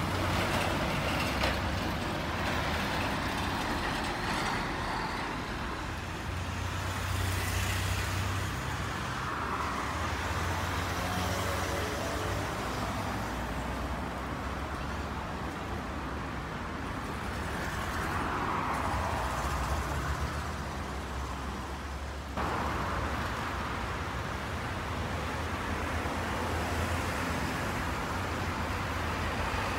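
Freight train moving slowly: a steady low diesel-locomotive rumble with a broad wash of wheel and train noise. The sound changes abruptly about two-thirds of the way through.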